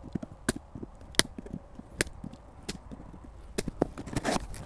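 Diagonal cutters snipping through the tape on a cardboard shipping box: sharp single snips roughly once a second, coming quicker near the end along with the rustle of cardboard.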